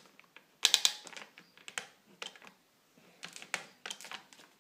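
Irregular plastic clicks and taps from hands handling the air hoses and fittings of a 3D-printed engine. The loudest click comes about half a second in, and smaller ones are scattered after it.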